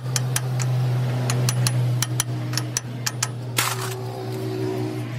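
Sharp, irregular clicks and taps, several a second, over a steady low machine hum, with a short hiss about three and a half seconds in.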